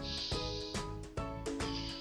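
Background music with held notes over a regular beat.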